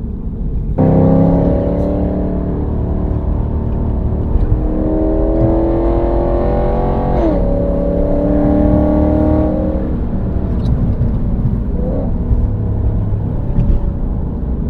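Chevrolet SS's 6.2-litre LS3 V8 pulling under throttle: the engine note comes in strongly about a second in and climbs in pitch, breaks briefly about seven seconds in, then drops off after about ten seconds as the throttle eases.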